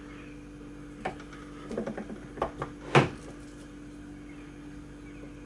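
A few short sharp metallic clicks and knocks, the loudest about three seconds in, as a Lorch AII lathe's tailstock is wound in to press a bush home into the spindle nose, over a steady low hum.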